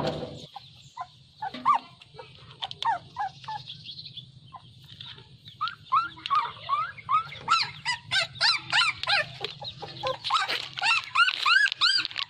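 Chickens calling: many short rising-and-falling chirps, a few at first and then a dense run of them from about six seconds in.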